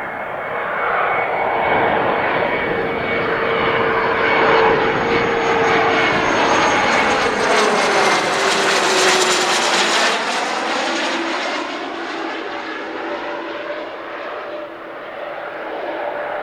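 Airliner's engines passing close by: a steady engine whine that drops in pitch as the aircraft goes past, about nine seconds in, then fades away.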